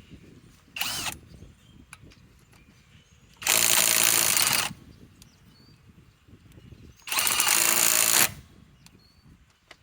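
Kobalt 24V 3/8-inch-drive right angle impact wrench hammering in three trigger pulls: a brief blip about a second in, then two runs of about a second each.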